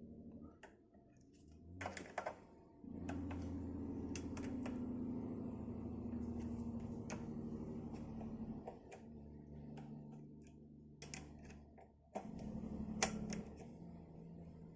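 Metallic clicks and knocks from handling a Leyland Atlantean air-operated gear shifter during its air test, over a low steady hum. The hum swells about three seconds in, eases off after about nine seconds, and comes back briefly near the end.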